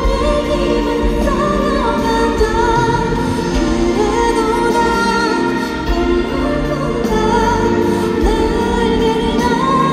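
A woman singing live over a band accompaniment: a slow melody of long held notes that slide between pitches, over a steady bass.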